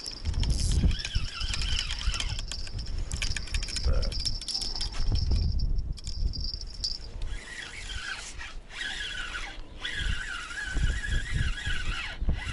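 Wind buffeting the microphone in a strong, uneven rumble. Over it runs a high steady whine, which about halfway through gives way to a wavering, lower whine.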